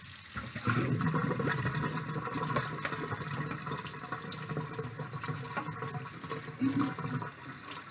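Kitchen tap running into the sink while a raw chicken is rinsed by hand, a steady rush of water with small splashes.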